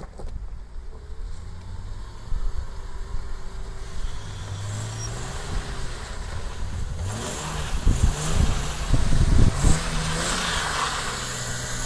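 BMW saloon's engine revving up and down as the car slides sideways on snow, with a hiss of spinning tyres and thrown snow that grows louder as it comes close in the second half.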